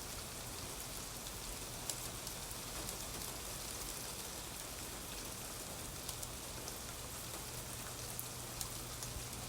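Steady rain falling, with a few faint sharp ticks scattered through it.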